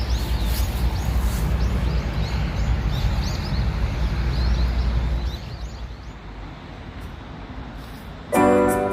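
Small birds chirping repeatedly with short high calls over a low rumble; the chirps thin out after about five seconds, when the rumble drops. Piano music comes in near the end.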